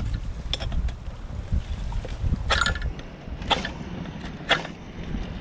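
Ferro rod struck with a striker to throw sparks onto a fire lay: short, sharp rasping scrapes, three strong ones about a second apart in the second half, with a couple of lighter ones near the start. Low wind rumble on the microphone underneath.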